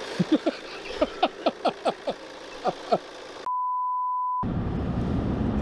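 A single steady test-tone beep, about a second long, from a 'no signal' test-card transition, preceded by short clipped bursts of a man's voice. Right after the beep, the low steady hum of a car's engine and road noise inside the cabin comes in.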